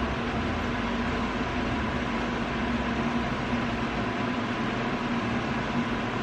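A steady mechanical hum: an even rushing noise with a constant low drone and a fainter, higher steady tone.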